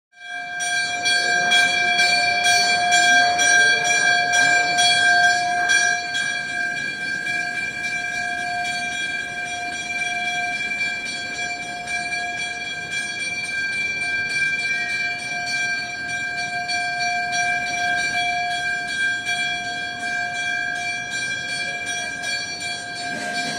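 A temple bell struck repeatedly for the first six seconds or so, then ringing on steadily in several held, clashing tones.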